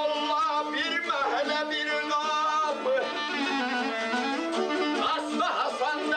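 Balaban (double-reed wind instrument) playing a held, ornamented melody over a strummed saz, in traditional ashiq instrumental music.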